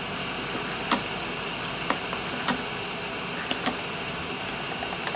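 Steady hiss of a television showing static, with a few sharp clicks about a second apart from a rotary telephone being dialed and handled.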